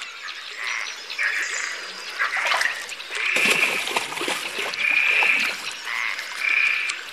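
Frogs croaking: a series of short, rasping calls repeating roughly once a second, with faint water splashing beneath.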